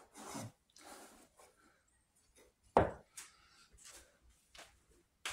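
Handling noises as an air rifle is laid down in its foam-lined hard plastic case: soft clicks and rustles, with a single sharp knock nearly three seconds in.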